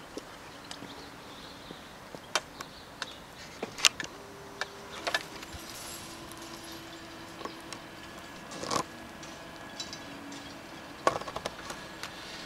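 Level crossing warning and barrier equipment in operation: a faint steady hum with scattered sharp clicks and knocks as the barrier booms start to come down.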